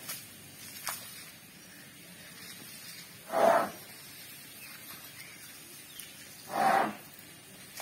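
Asian elephant blowing air out hard through its trunk: two short whooshes about three seconds apart. Beneath them a hose sprays water onto the ground with a faint steady hiss.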